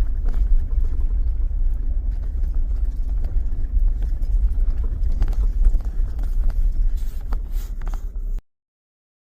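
A car driving along a rough back road: a steady low road rumble with scattered knocks and rattles. It cuts off suddenly about a second before the end.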